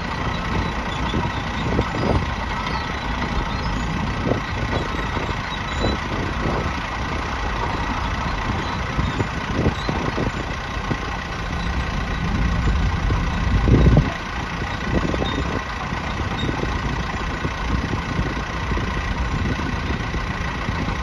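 Shantui DH17C3 bulldozer's diesel engine idling steadily, with a thin high whine, scattered light knocks, and one brief louder surge about two-thirds of the way through.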